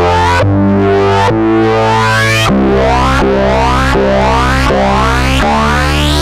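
Moog Subsequent 25 analog synthesizer playing a sequenced line of sustained, rich notes, a new note about every three-quarters of a second. From about halfway, each note carries a bright rising filter sweep.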